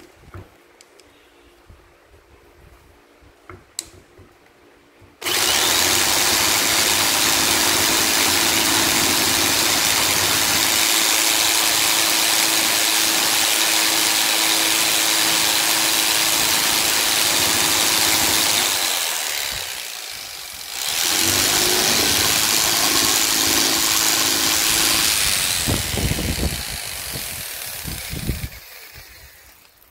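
Electric jigsaw fitted with a wooden sanding stick instead of a blade, running and sanding inside a notch in a wooden block. It starts suddenly about five seconds in, dips briefly about two-thirds of the way through, then winds down and stops near the end.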